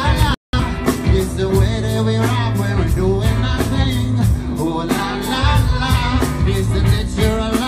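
Live band music with a male voice singing into a microphone over drums and a steady beat. The sound cuts out completely for a moment right at the start.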